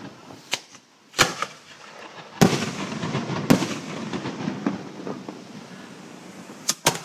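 Fireworks display: a series of sharp bangs from bursting shells, about six in all, with a stretch of crackling after the third and two quick bangs close together near the end.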